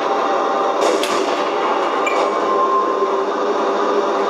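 Simulated tank engine idling steadily, played through the RC model's sound module and small speaker, with a short metallic clank about a second in.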